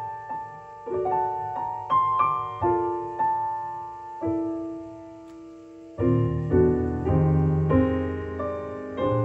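Solo piano music played back over a hi-fi system through Tannoy Gold loudspeakers: a soft melody of single notes, then fuller, louder chords with low bass notes coming in about six seconds in.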